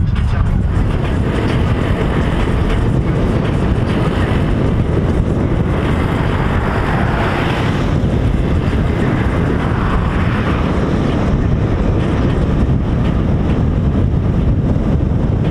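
Steady wind rush and road noise from a car moving at highway speed, with wind buffeting a microphone held out of the window.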